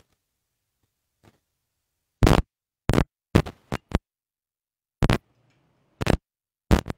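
A string of short, sharp taps or knocks, irregularly spaced, starting about two seconds in, with dead silence between them.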